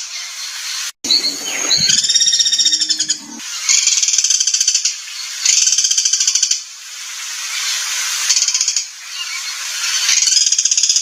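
Recorded songbird song: rapid, high, scratchy trilled phrases of about a second each, repeated with short gaps. This is 'rough' tutor material of the kind played to train contest songbirds. The sound cuts out briefly about a second in.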